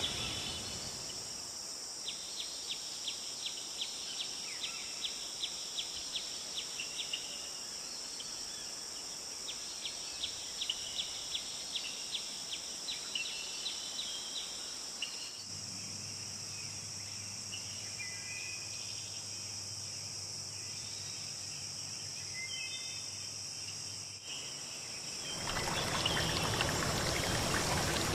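Outdoor nature ambience: a steady high insect drone with two runs of rapid chirping at about four a second. About three seconds before the end, the louder rush of running water sets in.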